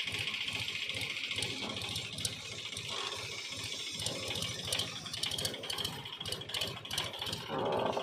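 Tractor diesel engine running steadily with a fast, even chugging as it pulls a trolley loaded with soil.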